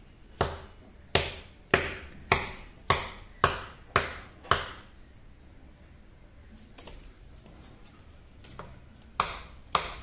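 A person beating a steady time with sharp clicks, the kind used to cue a talking parrot to dance. Eight clicks come at a little under two a second, then a few faint ones, then two more near the end.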